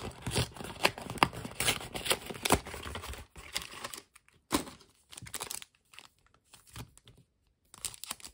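Trading-card booster pack wrapper crinkling as it is handled, with cards shuffled: a run of sharp crackles that thins out after about four seconds into sparse rustles with short quiet gaps.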